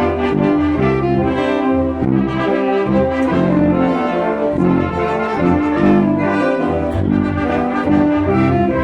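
Mexican banda filarmónica (wind band) playing, with brass to the fore over a steady, rhythmic bass line.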